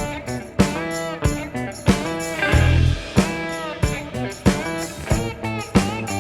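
Background music: a guitar playing bending notes over a steady beat.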